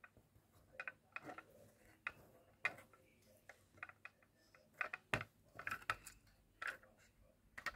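Small, irregular plastic clicks and taps from the stabiliser jacks of a Centy Toys die-cast fire ladder truck as they are twisted into lock position and pulled down by hand.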